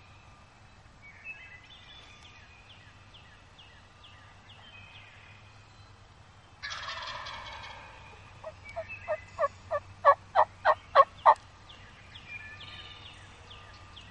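A wild turkey gobble, a rattling call lasting about a second and a half, about halfway through. It is followed by a run of about a dozen turkey yelps, roughly three a second, growing louder, which are the loudest sound. Faint songbird trills come before and after.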